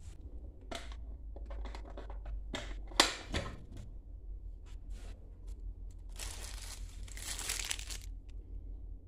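Rummaging through a first-aid kit: plastic wrappers crinkling and small clicks and knocks as packets and the case are handled. There is one sharp knock about three seconds in and a longer stretch of crinkling from about six to eight seconds, over a steady low rumble.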